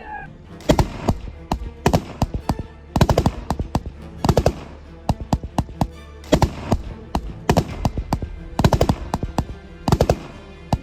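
Repeated short bursts of automatic gunfire, each a quick run of several shots, about one burst a second, over a steady background music bed.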